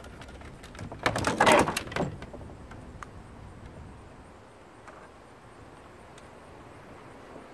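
Plastic housing of a dismantled foot massager being wrenched and shifted. There is a burst of knocking, cracking and rattling plastic about a second in that lasts about a second, then quieter handling with a few light clicks.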